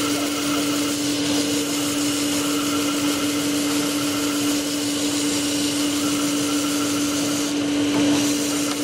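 Disc sander running steadily with a constant motor hum, a small wooden peg held against the spinning abrasive disc and being sanded.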